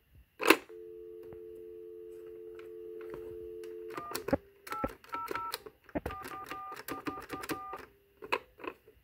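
A sharp click, then a steady telephone dial tone (two low tones held together) for about three seconds. It stops when touch-tone keys are pressed, and a string of short DTMF key tones follows as a feature code is dialed into the DMS-10 switch.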